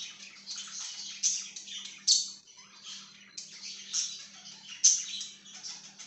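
A flock of budgerigars chirping and warbling in a continuous, irregular chatter, with a few sharper, louder chirps scattered through it.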